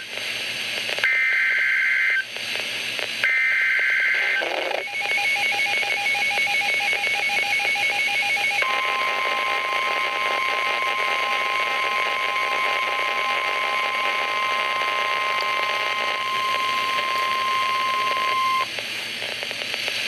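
NOAA Weather Radio emergency alert sounding from a weather radio receiver: the last two of three short screechy SAME digital header bursts, then rapid beeping, then the long steady single-pitch warning alarm tone for about ten seconds, which cuts off shortly before the end. The sequence signals an incoming severe thunderstorm warning.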